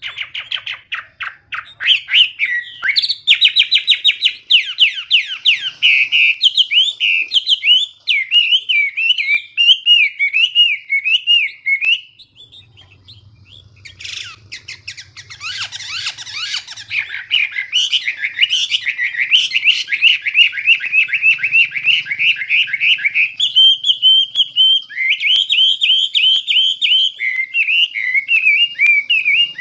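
Chinese hwamei (Garrulax canorus, a laughingthrush) singing loudly: long runs of rapid repeated notes and warbled, rising-and-falling phrases, breaking off for about two seconds near the middle before starting again.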